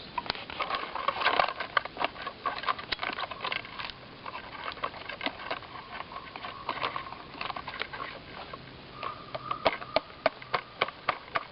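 Hammer tapping nails into a tree trunk: many light, irregular taps, with a run of stronger, more regular blows near the end and a faint ring from the nail at times.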